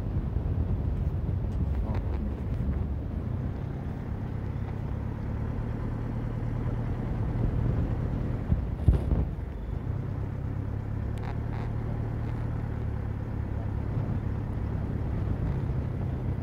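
A vehicle engine running steadily at low speed on a rough dirt track. There is a sharp thump about nine seconds in, after which the engine hum briefly dips before picking up again.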